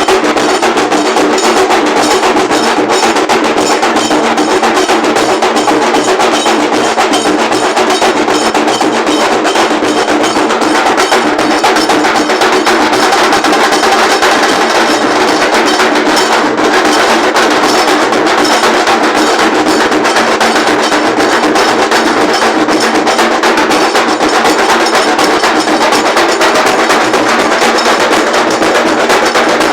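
Large dhol drums played by a band, beating a fast, dense, unbroken rhythm at a loud, even level.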